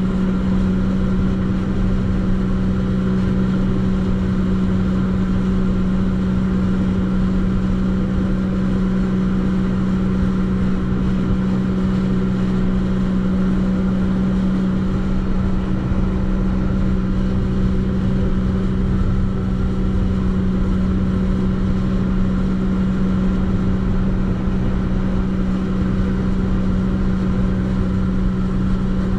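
Jet ski engine running at a steady, unchanging pitch, held at constant throttle, with a rough rushing noise beneath it.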